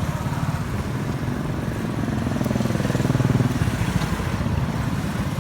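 A small engine running close by with a fast, even pulse, its pitch gliding up briefly in the first half and a little louder about three seconds in.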